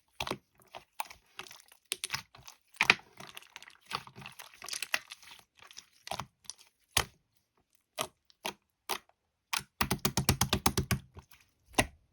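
Irregular sharp clicks and taps, then a quick run of about a dozen taps near the end.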